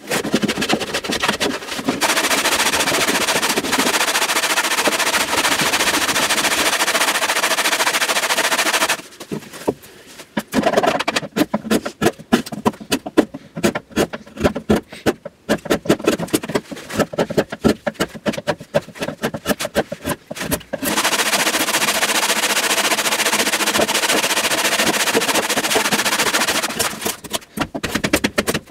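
Small hand plane cutting a spruce cello top during rough arching, scraping across the wood. Long runs of rasping strokes come first, then a long stretch of quick, short separate cuts several a second, then steady stroking again.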